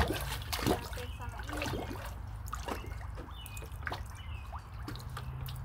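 Water in a small kiddie pool splashing, trickling and dripping as a toddler plays in it: irregular small splashes and drips, the biggest at the very start and again just under a second in.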